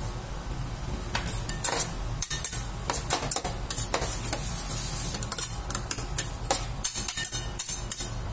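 Two metal spatulas scraping and clacking on a stainless-steel ice cream cold plate as the freezing ice cream base is spread and worked. Irregular scrapes and taps start about a second in, over a steady low hum.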